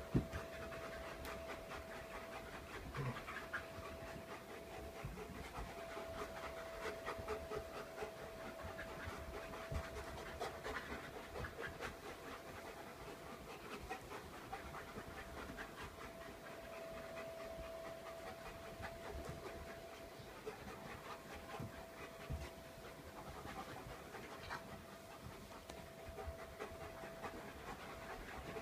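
Dogs panting, with a steady thin tone in the background.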